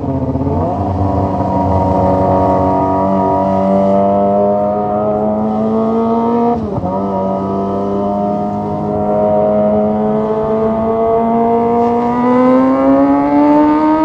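Kawasaki ZX-25R's 249 cc inline-four engine through a Leo Vince GP Corsa Evo short full-system exhaust, ridden under way at fairly steady high revs. The revs dip sharply and recover at the start and again about halfway, and climb again near the end.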